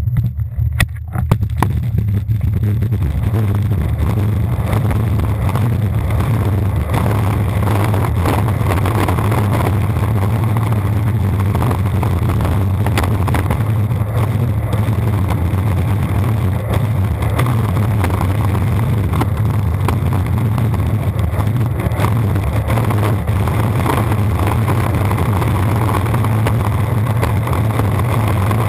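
Longboard wheels rolling fast over rough asphalt, a loud steady low rumble carried through the deck to a camera mounted on the board, with many short clicks and ticks from grit and cracks in the road. The rumble grows over the first couple of seconds as the board gets going, then holds steady.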